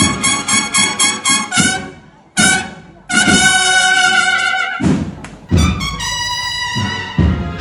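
A brass band playing a processional march: a run of quick repeated brass notes, a brief break, then long held chords punctuated by heavy bass drum strokes.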